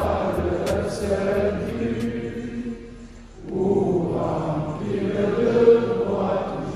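A large group of people singing together in unison, breaking off briefly about three seconds in and then carrying on.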